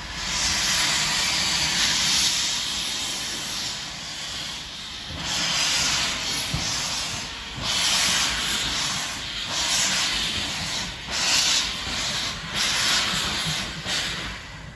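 Steam locomotive with its cylinder drain cocks open, hissing steam: a loud continuous hiss at first, then separate hissing bursts about once a second in time with its beats as it moves off slowly.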